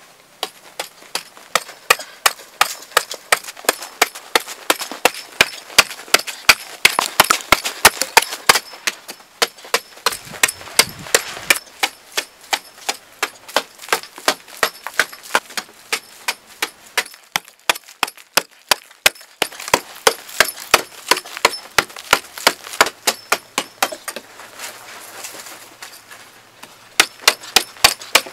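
Metal blade of a long-handled digging tool striking hard, dry clay soil over and over, about three sharp hits a second, loosening earth and clods.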